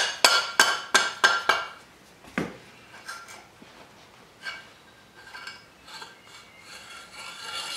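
Aluminium lower unit of a small Yamaha four-stroke outboard being worked loose from its midsection: a quick run of sharp metallic knocks, about three a second, for the first second and a half, one more knock, then a quieter metallic scraping and rubbing as the gearcase slides off the drive shaft and shift rod.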